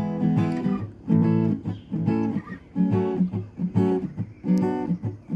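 Guitar strumming chords in a steady rhythm, about one chord a second, each ringing briefly before the next.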